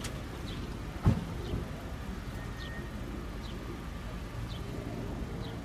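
Second-generation Acura NSX's twin-turbo V6 idling with a steady low rumble, with one sharp thump about a second in.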